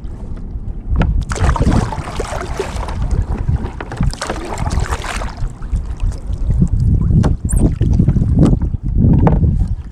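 Kayak paddle strokes swishing and splashing through the water, two long washes in the first half, over a steady low rumble of wind on the microphone, with a few light knocks.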